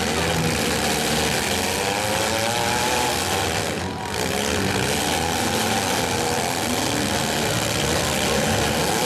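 Engines of several compact demolition-derby cars running and revving at once, their pitch rising and falling as they accelerate and ram each other.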